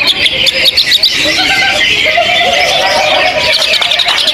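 Several caged songbirds singing at once in rapid overlapping chirps and trills, the dense chorus of a bird-song contest.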